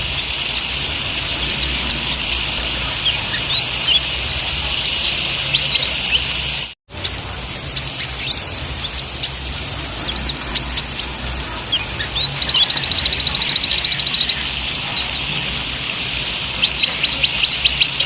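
A group of kolibri ninja sunbirds calling together: sharp high chirps throughout, with rapid rattling trills about five seconds in and again through the last six seconds. The sound cuts out completely for a moment about seven seconds in.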